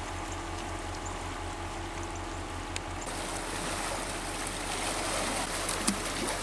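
Creek water running steadily, getting brighter and a little louder about halfway through, with a few faint clicks.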